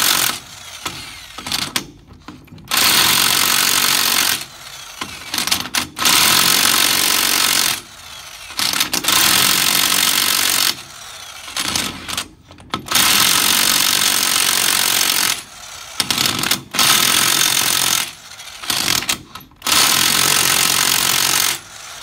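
Corded electric impact wrench hammering in about seven bursts of one and a half to two and a half seconds each, with short pauses between. It is tightening the rim-clamp nuts on a mobile home spoke wheel one after another, so the wedges draw evenly into the rim.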